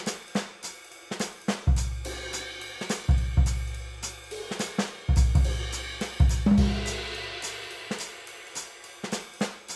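Background music: a drum-kit beat with hi-hat and cymbal hits over long, deep bass notes.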